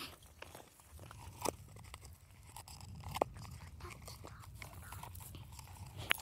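Coconut husk being pulled and twisted off by hand: faint fibrous crunching and tearing, with a few sharp clicks.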